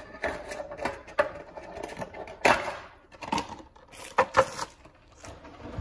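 Foil Pokémon booster pack wrappers being handled, crinkling and rustling, with a run of sharp little taps and clicks. The longest and loudest crinkle comes about two and a half seconds in.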